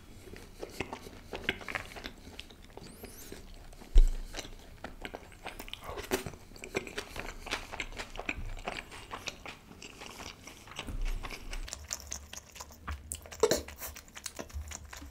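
Close-miked chewing of butter chicken: soft mouth clicks and crunches, with one short dull thump about four seconds in.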